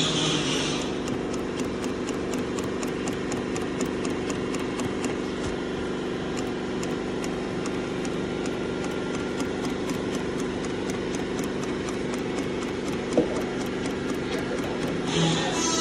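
Industrial sewing machine stitching through a vinyl motorcycle seat cover: a steady motor hum with a regular needle clicking of about three strokes a second. One brief knock about thirteen seconds in.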